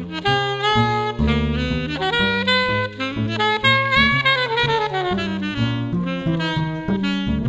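1968 Selmer Mark VI alto saxophone playing a jazz melody, with a long falling run in the middle, over a bass line stepping from note to note.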